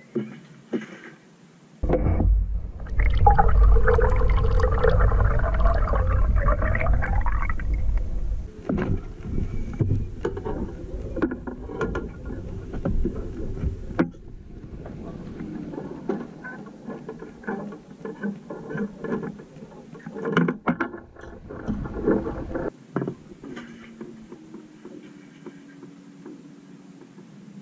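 A low rumble with a wavering pitched whine for several seconds, then many quick knocks and slaps as a pikeminnow flops about on a carpeted boat deck.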